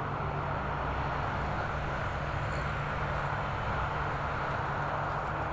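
Engines running in a steady drone with a constant low hum, holding level throughout.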